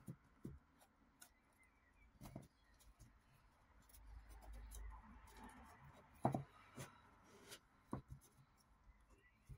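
Faint rubbing and scraping of cardboard tape roll cores as a slit core is squeezed by hand down inside another, with a few soft knocks, the loudest about six seconds in.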